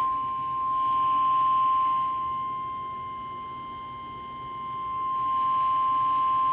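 NOAA Weather Radio alert tone: one steady, unbroken high beep at a single pitch, announcing an emergency alert message. It fades somewhat in the middle and comes back up.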